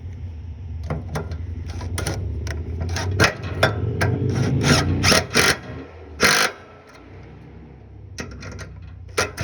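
A passing motorcycle's engine drones low and steady, then fades away about six and a half seconds in. Over it come a series of sharp, irregular metallic clicks and clinks from hand tools at work on a carburetor's mounting bolts.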